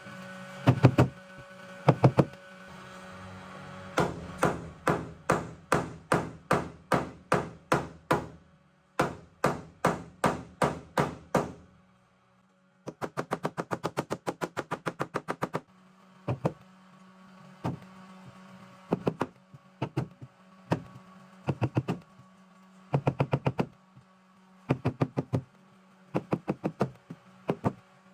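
Series of light hammer taps on the Studebaker's body panel, paintless dent repair tapping down the metal. The taps come in regular runs of about two a second, with a quicker rapid-fire run a little before halfway and short clusters of taps after it, over a faint steady hum.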